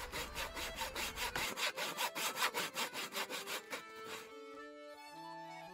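A small hand saw cutting through a firewood log in quick, even back-and-forth strokes, which stop about four seconds in; after that only soft plucked music notes remain.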